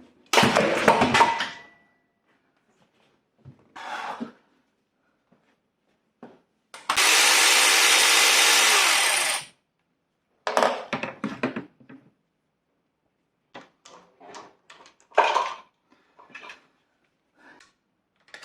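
Handheld power tool spinning steadily for about two and a half seconds while work goes on at the engine, with shorter bursts before it and clinks and rattles of tools and metal parts after it.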